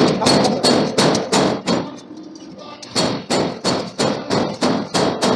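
Forging hammer striking a steel billet in rapid repeated blows, about five a second. The blows pause for about a second near the middle, then start again.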